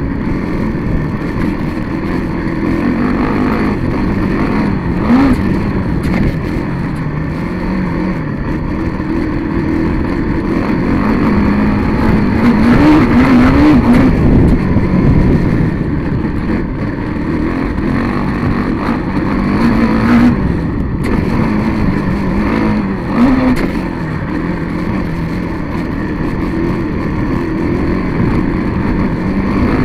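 A vehicle's engine heard from an onboard camera, running hard, its pitch climbing and dropping again and again as the throttle opens and closes, over a constant rumble of wind and track noise.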